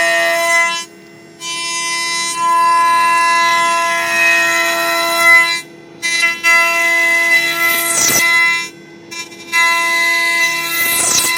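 CNC router running: the spindle holds a steady whine while the axis motors whine in pitched stretches that start and stop as the machine moves, with two quick falling sweeps late on.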